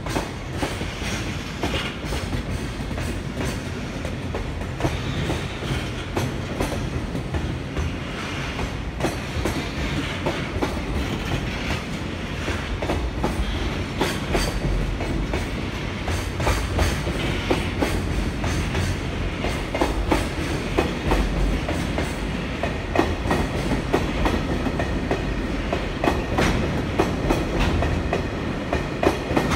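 Container flatcars of a departing freight train rolling past, their wheels clicking over the rail joints over a steady rumble. The clicks come faster and louder as the train gathers speed.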